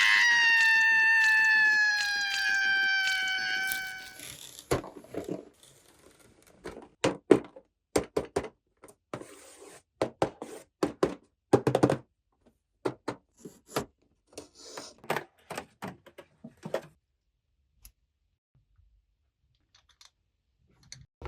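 A held tone sliding slightly downward for about four seconds, then a scattered series of light clicks and knocks as toy doctor-kit pieces are handled, stopping about 17 seconds in.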